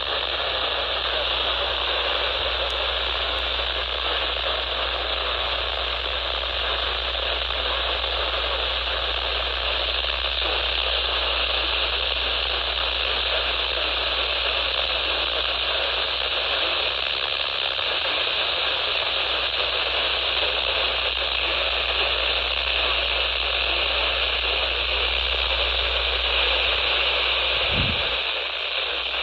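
Steady radio static hiss from a receiver with no voice coming through, over a low hum. A brief low thump sounds about a second before the end.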